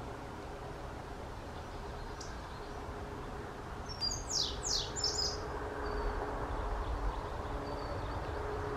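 Male indigo bunting singing one short song about four seconds in: a quick run of high, falling notes lasting about a second and a half.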